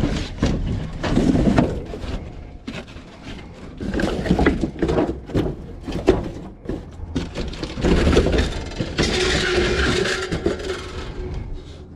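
Scrap and junk being rummaged through in a dumpster: irregular clatter, knocks and rustling of objects being shifted, with a stretch of louder scraping rustle near the end.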